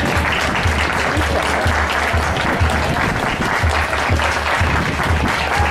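Spectators applauding steadily as a parade passes, over a bass drum beating a marching rhythm about twice a second.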